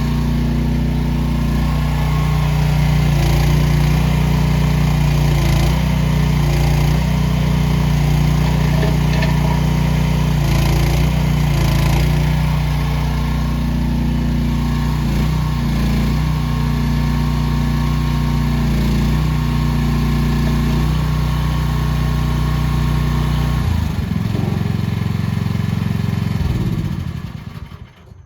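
The small engine of an AGT H15 mini excavator running steadily, with a few faint clicks. Near the end its note changes, then it winds down and stops.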